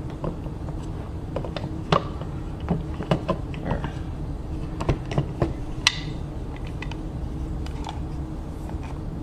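Scattered clicks and light knocks as rubber feet and the bottom plate are pressed onto an old plastic Singer sewing machine foot pedal, with the sharpest click about six seconds in. A steady low hum sits underneath.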